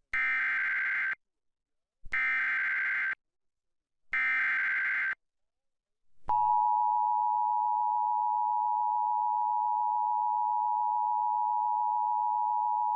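Emergency Alert System broadcast alert: three one-second warbling data tones of the SAME header, about a second apart, then the steady two-tone attention signal starting about six seconds in, announcing a severe thunderstorm warning.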